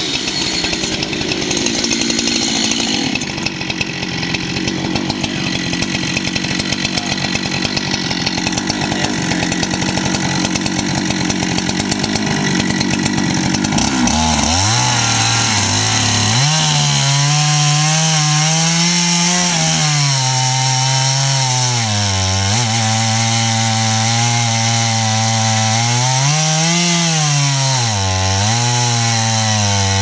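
A chainsaw runs at a steady high speed. About 14 seconds in, the Husqvarna 395XP's big two-stroke engine is heard ripping a slab on a four-foot-bar Alaskan chainsaw mill, its pitch sagging under load and picking back up every few seconds.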